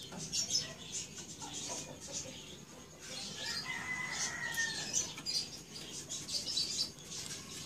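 Small clicks and rustles of hands fitting cable connectors onto the formatter board of an opened HP LaserJet 1300 printer and handling its plastic chassis. About three seconds in, a bird call is drawn out for over a second.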